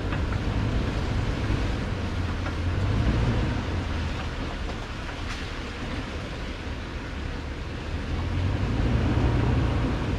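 A 2018 Toyota Tundra's V8 running steadily at crawling speed, its 35-inch BFG KO2 tyres rolling over a rutted dirt trail. The low engine drone sits under rough tyre and road noise, swelling a little about three seconds in and again near the end.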